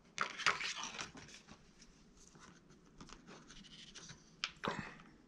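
Faint handling noise as a small painted rifle model is lifted off its clay support and turned in the hand: rustles in the first second, then two light clicks near the end.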